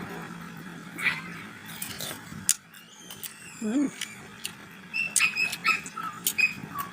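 Brief animal calls: one short, low call that rises and falls about halfway through, then several short, high chirps in the second half, among scattered sharp clicks.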